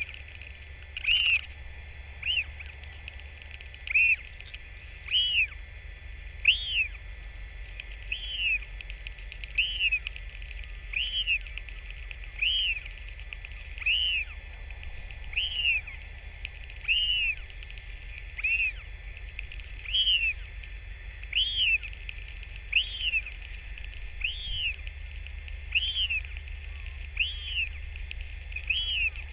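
A bird giving a short whistled call, rising then falling, over and over at a steady pace of about one every second and a half, over a steady low rumble.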